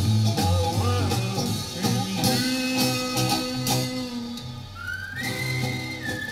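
1963 Swedish pop-rock record playing from a 7-inch vinyl single on a turntable: guitar and bass over a steady beat, with a high, pure-toned melody line coming in about five seconds in.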